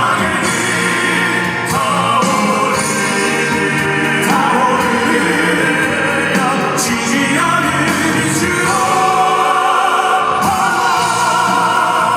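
Male vocal group singing in an operatic, classical-crossover style, several voices in harmony over accompaniment, loud and continuous.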